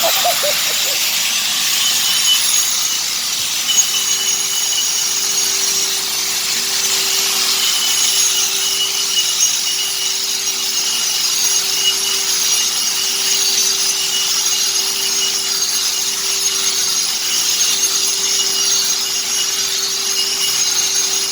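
A power tool cutting or grinding continuously, a loud steady hiss with a constant low hum running under it.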